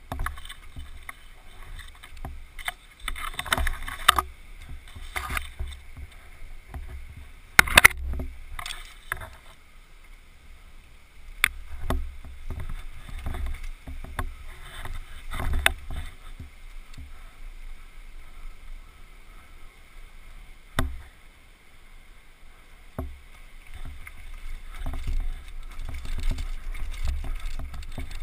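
Downhill mountain bike rattling and clattering over dirt, rocks and roots, picked up by a helmet-mounted camera, with a steady low rumble and several sharp knocks from hard hits on the trail.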